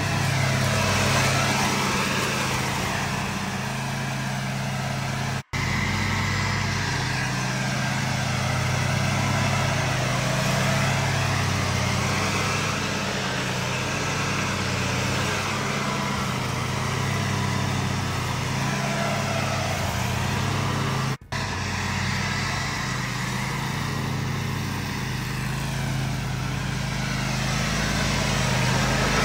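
Toro zero-turn riding mower running steadily while mowing grass, its engine note holding even, with two instants where the sound drops out.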